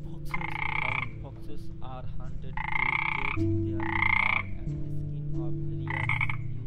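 Frogs croaking: four loud, buzzy calls, each under a second long, spaced a second or two apart, over a steady low hum.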